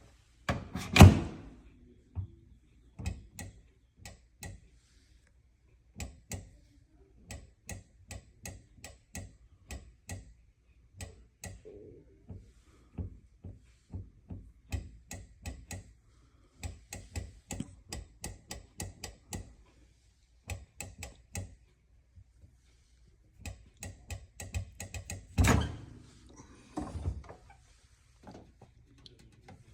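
GE microwave oven door being opened and shut over and over: many short sharp latch clicks, with a heavier thunk about a second in and again near the end. The door is being checked because the microwave keeps blowing its fuse, a fault typical of the door's latch and interlock switches.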